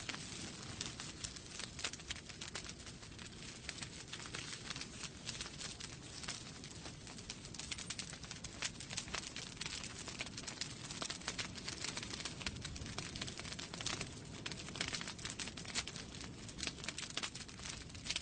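Wood fire burning in a fireplace: a steady low rumble of flames with frequent irregular crackles and small pops.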